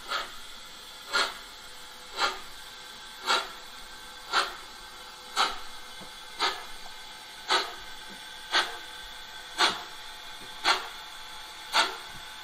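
Simulated steam-exhaust chuffs from the sound decoder of a Gauge 1 (1:32) model of a Prussian T3 / class 89 tank locomotive running at slow speed. The short hissing beats come evenly, about one a second.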